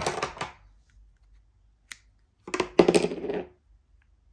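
Close handling noises as a length of bait floss is taken from its plastic spool and the rig is handled on a tabletop: a short scraping rattle at the start, a single click just under two seconds in, and a longer, louder scrape with clicks about two and a half seconds in.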